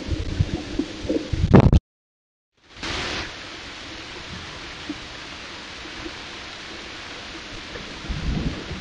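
Outdoor sound through a trail camera's microphone: low rumbling thumps, a sudden silence of about a second, then a steady hiss, with the low rumbling returning near the end.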